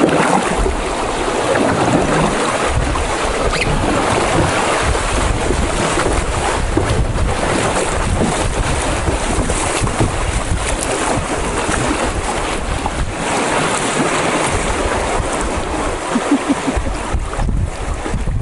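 Steady rush of river current around a moving canoe as it runs through a shallow riffle, with wind buffeting the microphone.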